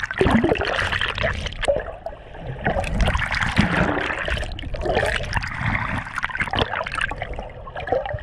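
Muffled underwater sound through an action camera's waterproof housing: water rushing and bubbling as the swimmer holding it moves, with scattered clicks and knocks.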